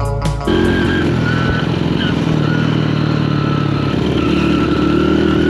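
Motorcycle engine running steadily while riding, with a thin wavering whine above it. Music cuts off about half a second in.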